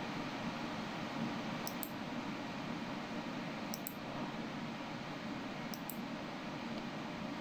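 Steady background hiss with a low hum-like band, and a faint pair of short high ticks about every two seconds.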